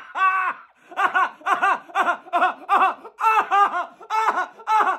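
A man laughing hard and loud, a fast run of high-pitched "ha" bursts at about three a second with a few short catches of breath between runs.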